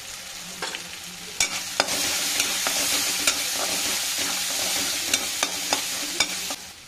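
Onion-tomato masala sizzling in a hot metal kadhai while a flat steel spatula stirs it, the spatula clicking and scraping against the pan every so often. The sizzle gets louder about two seconds in and drops away just before the end.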